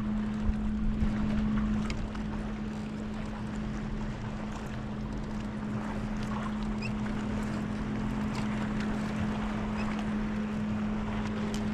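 A boat motor running with a steady hum, over wind and water noise.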